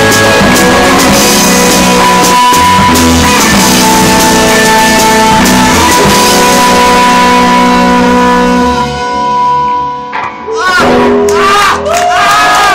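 Live rock band with guitar and drum kit playing loudly, the song ending about nine seconds in. Shouts and cheers from a few people follow.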